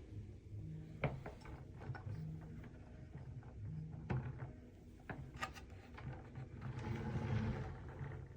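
Handling noise: a few sharp clicks and taps, as of hard plastic parts or items being moved and set down, with a rustling rise near the end over a low steady hum.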